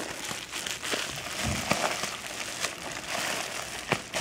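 Bubble-wrap packaging crinkling and rustling as it is handled, with a few sharp clicks.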